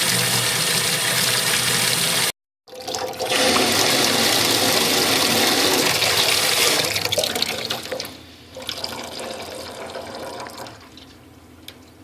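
Water running hard from a laundry-tub faucet into a plastic utility sink, then dying down to a thin trickle in the second half as the pipes drain with the house's water supply shut off. The sound cuts out briefly about two seconds in.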